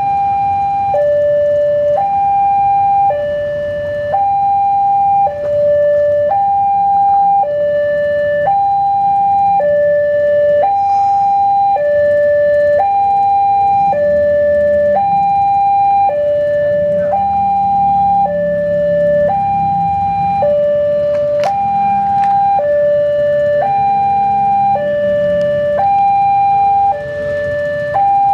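Railway level crossing warning alarm sounding loudly: an electronic two-tone signal switching between a higher and a lower tone about once a second, the signal that a train is approaching the crossing.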